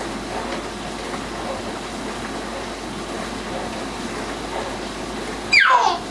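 Dishwasher running, with a steady wash of water spraying and sloshing inside. Near the end, a baby lets out a short, loud squeal that falls in pitch.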